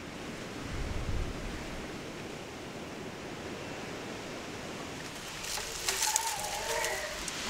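Steady rushing outdoor noise. About five and a half seconds in, dry brushwood twigs rustle and crackle as a bundle is handled, with a short wavering call over them.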